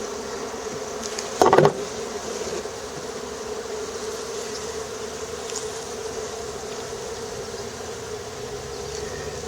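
Honeybees buzzing steadily in a swarm around an open hive, one even hum throughout. A short, much louder pitched sound cuts in about one and a half seconds in.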